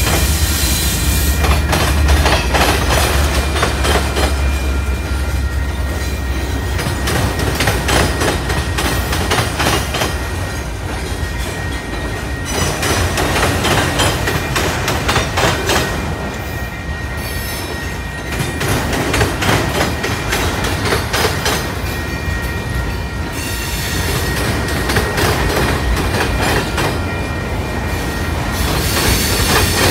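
Freight train cars rolling past: a steady clatter of steel wheels over the rail joints, with a thin, steady wheel-flange squeal over it.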